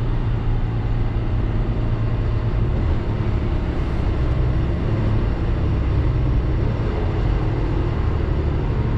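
Cab interior sound of a Volvo A40 dump truck's 13-litre diesel engine running steadily while the truck drives, a constant low engine hum with road and drivetrain noise.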